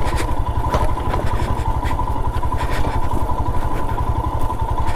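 Royal Enfield Himalayan's single-cylinder engine running at low revs under load as the motorcycle is ridden slowly up a rough off-road trail, its firing pulses steady throughout, with a few short clicks and knocks.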